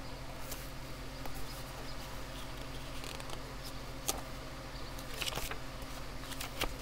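Steady low background hum with a few soft clicks and a brief rustle of paper as a picture book is handled and its page turned, the rustle coming about five seconds in.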